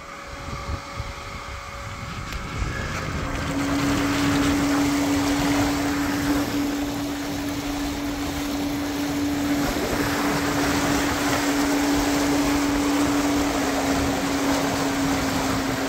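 Bison DA400 electric outboard motor running under way with a steady hum, which sets in about three and a half seconds in, over the rush of water and wind noise.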